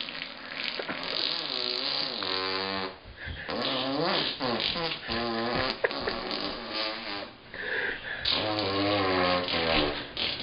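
Imitation fart noises made by boys, several long, wobbling, pitched blasts in a row.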